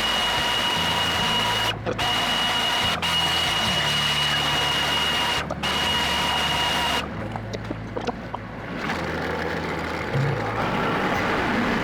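Kubota L3400 tractor's diesel engine running, its pitch shifting up and down with the throttle. A steady high whine sits over it for the first seven seconds or so; after that the engine runs lower and quieter.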